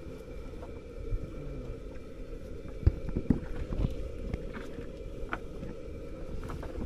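Steady low hum of the fishing boat's engine running, with a few sharp knocks and taps about three seconds in as a Spanish mackerel is handled in a landing net on the wooden deck.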